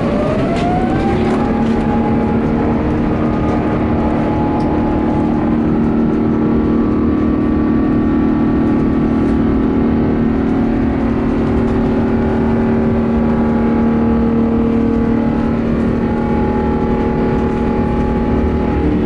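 Airbus A350's Rolls-Royce Trent XWB turbofan engines heard inside the cabin, spooling up with a rising whine in the first second or so, then holding a loud, steady drone with several steady tones at takeoff power during the takeoff roll.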